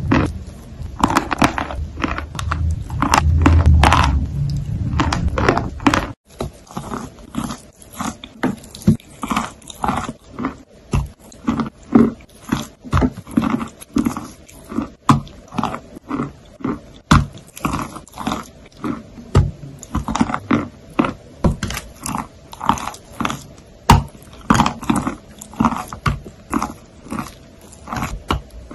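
Mouth sounds of someone eating a soft, creamy food: wet biting, lip smacks and chewing. For the first six seconds the sound is dense and louder, with a low rumble. After a cut it settles into regular chews at about one a second.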